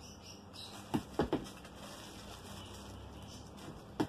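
Scissors snipping through a plastic courier mailer bag: three short sharp cuts about a second in, and one more near the end.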